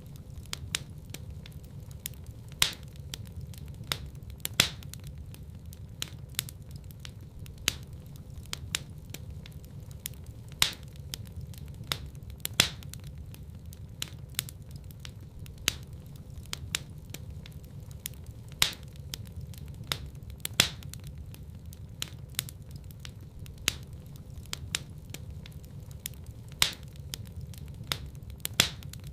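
Wood fire in a fireplace crackling steadily, with frequent small snaps and a few louder pops every couple of seconds, over a low steady rumble of the burning.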